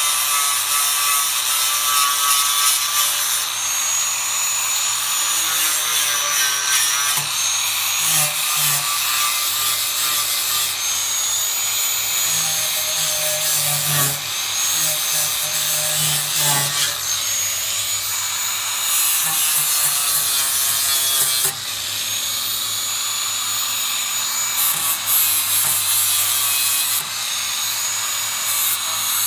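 Handheld angle grinder grinding bare steel on a pickup's fender, throwing sparks as it strips paint and rust. It runs continuously, its whine shifting in pitch several times as it is pressed into and lifted off the metal.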